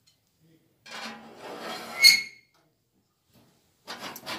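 Sheet-metal parts of a small charcoal barbecue grill scraping and sliding against each other for about a second and a half, ending in a short high squeak. A softer rustle or clatter follows near the end.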